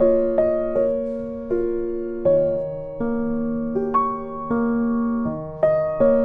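Background music: a slow, gentle piano melody of notes that strike and fade one after another.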